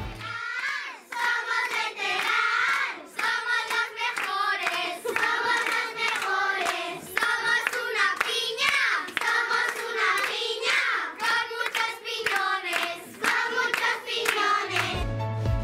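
A group of children singing a song together, clapping their hands in time.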